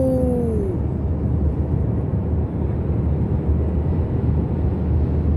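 Steady road and engine noise inside a car's cabin at highway speed, a low even rumble with no changes.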